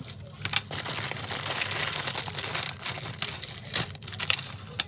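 Plastic packaging crinkling and tearing, in irregular rustles and sharp crackles, as packets are handled and opened.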